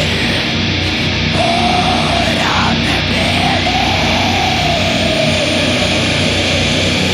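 Old-school Norwegian black metal playing: a dense, harsh wall of distorted guitar and drums, with a single melodic line wavering above it.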